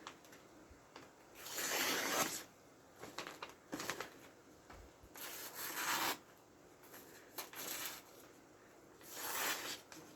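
A sharp knife blade slicing through paper three times, each cut a rasping stroke about a second long, showing the edge is razor sharp.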